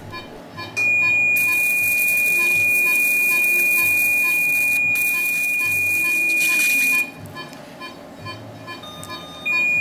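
Electrosurgical (electrocautery) unit's steady high activation tone, held for about six seconds while the energized handpiece burns tissue, with a hiss over most of it; a second short tone sounds near the end.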